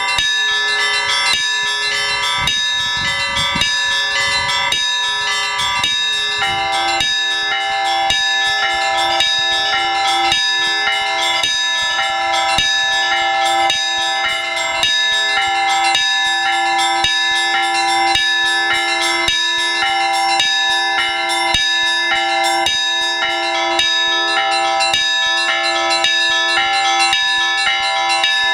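Orthodox church bells rung by a bell-ringer in a fast, continuous peal, with many high and middle bells struck in quick succession. This is the ringing that calls the faithful to the all-night vigil. About six seconds in, a deeper bell joins and keeps sounding under the others.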